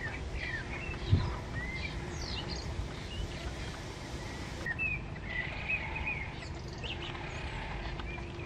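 Small birds chirping in short, scattered rising and falling calls, over a steady low background rumble.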